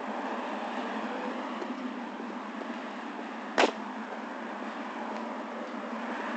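Steady outdoor street noise with one short, sharp knock about three and a half seconds in.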